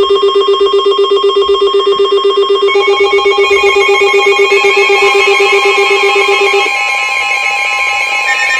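NOAA Weather Radio alert tones: a loud tone pulsing rapidly like a ringing phone bell, over a steady higher tone near 1,000 Hz, the weather radio warning alarm tone. More steady alarm tones join about a third of the way in, and the pulsing tone stops near the end.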